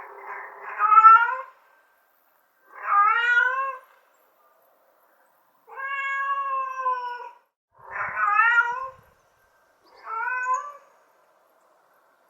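Domestic cat meowing five times, each meow about a second long with a short gap between. The middle meow is longer and held at a steadier pitch than the others.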